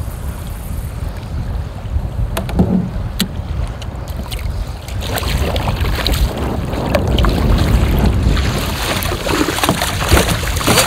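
Wind buffeting the microphone and choppy water slapping and rushing against a kayak's hull as it rides over waves, getting louder about halfway through, with a few sharp knocks early on.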